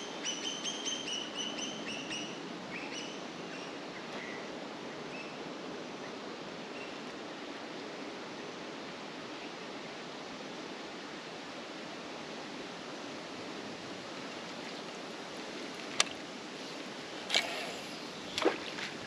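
A bird calls a quick run of about a dozen clear chirps in the first few seconds, over a steady outdoor hiss. About three seconds before the end comes a single sharp click, then a few short sharp sounds.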